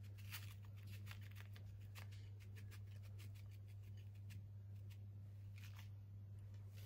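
Paper sachet of icing sugar being shaken and tapped over a cake: a faint, quick rustling patter of small ticks that thins out after about two and a half seconds, leaving only scattered ticks.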